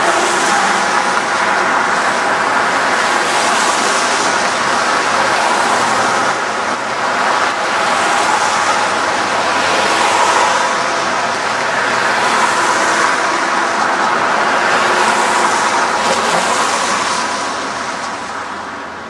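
Road traffic going by close at hand: a steady rush of cars and tyres, with single vehicles swelling past every few seconds. The traffic noise eases off near the end.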